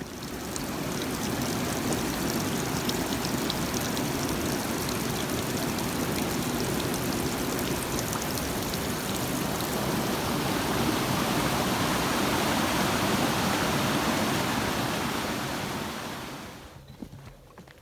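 Rushing stream water: a steady, loud splashing wash that starts abruptly and fades out near the end.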